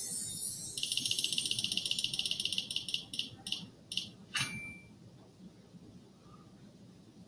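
Quizizz power-up spinner sound effect from the computer: a fast run of high ticks that slows to a few separate ticks, like a wheel spinning down, then a single bright ding as the selection lands on the x2 power-up.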